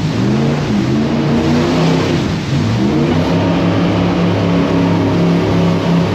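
Jet boat engine revving, its pitch swinging up and down through the first three seconds and then holding steady, over a constant rushing noise.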